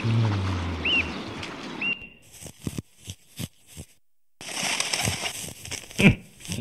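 Cartoon sound effects: three short chirps and a short falling low tone over a steady hiss, then a sudden change to a run of soft separate thuds like footsteps in snow, the loudest about six seconds in.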